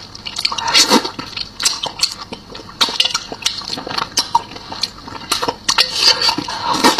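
Close-miked mukbang eating sounds: a man gnawing and sucking on a small turtle in sauce, with irregular wet smacks and mouth clicks.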